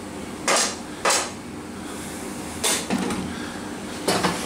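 Stainless-steel pasta basket clanking against the rim of a metal pan as boiled pasta is shaken out into the sauce: four short metal clanks, irregularly spaced.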